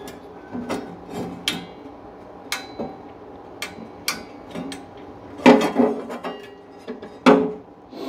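Metal tools clinking and knocking against the sheet-metal back of a wood stove as its blower motor is worked loose: a string of separate sharp clicks, with two louder knocks in the second half.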